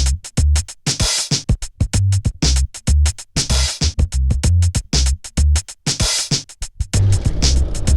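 Background music: a hip hop drum-machine beat with heavy kicks and sharp stop-start chops. Near the end a steady noise comes in underneath the beat.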